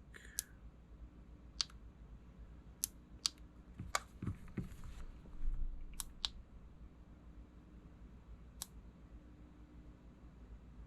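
Scattered sharp clicks, about seven over the few seconds, with a soft rustle around four to five seconds in: small electronic parts, a phone battery and a flex-cable connector, being handled and pressed together on a workbench.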